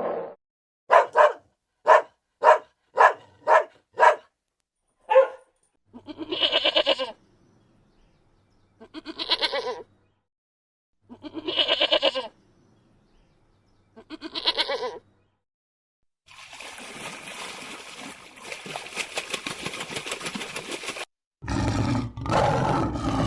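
A run of animal calls: a dog barking in seven short barks about two a second, then a goat bleating four times, each bleat about a second long, followed by a noisy hissing stretch. Near the end a loud, deep call begins, the start of a big cat's roar.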